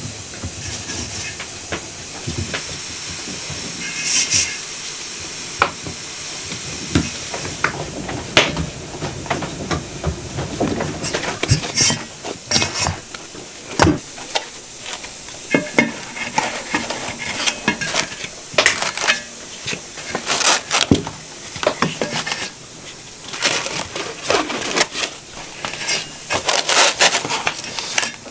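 Hands working dough in an enamel bowl, then a roll of plastic cling film being pulled out, crinkling and rustling as it is stretched over the bowl. Many sharp clicks and rustles, thickest near the end.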